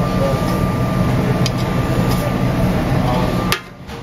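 Steady mechanical drone of a commercial kitchen's ventilation and gas range, with a faint steady high whine over it. The drone cuts off suddenly near the end.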